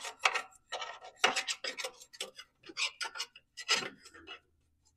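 Irregular metal scraping and clicking as the pressed-steel front axle of a 1989 Craftsman lawn tractor is poked and cleared of packed dead grass and nest debris so the deck-link pin will go through. The scraping stops shortly before the end.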